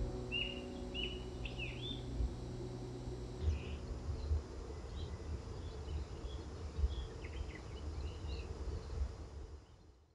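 Small birds chirping in short, scattered calls over a low, uneven outdoor rumble; the sound fades out near the end.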